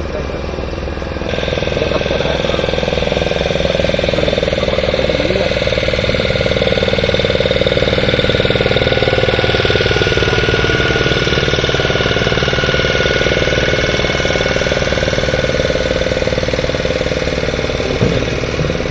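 A loud engine running steadily, getting louder about a second in and then holding even.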